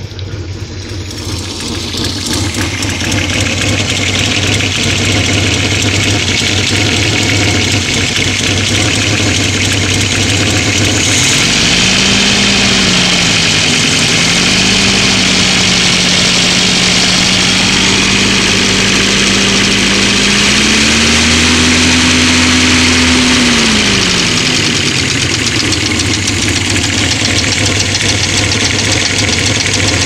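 1970 Opel GT's four-cylinder engine idling with a fast light clicking, which the owner hears at idle and says goes away at higher revs. About a third of the way in the engine is brought up to a higher, steady speed. It drops back toward idle about three quarters of the way through.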